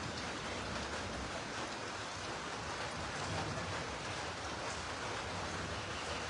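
Heavy rain falling, a steady, even hiss with no letup.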